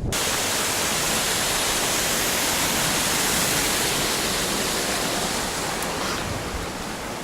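Steady rush of a waterfall, a dense hiss of falling water that cuts in suddenly and eases slightly near the end.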